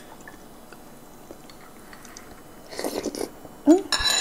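Mouth sounds of eating: soup slurped straight from a bowl, a short slurp about three seconds in and a louder one just before the end.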